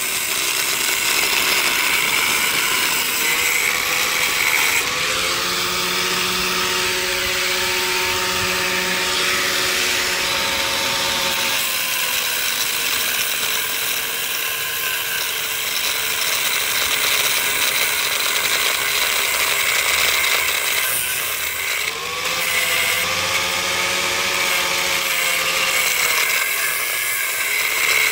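A hand-held power tool running continuously against the metal post set in the concrete, its motor pitch rising and falling twice as it is loaded.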